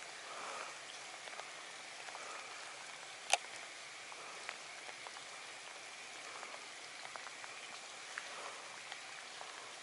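Light rain falling on a still water surface: a steady hiss dotted with small drop ticks. One sharp click stands out about a third of the way through.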